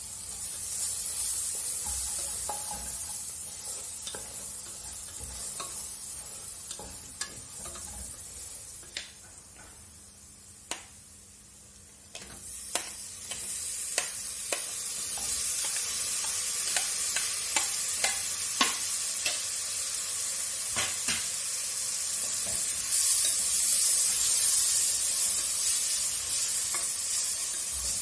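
Food sizzling as it fries in a pan, stirred with a utensil that clicks sharply against the pan many times. The sizzle drops back for a few seconds around the middle, then returns louder.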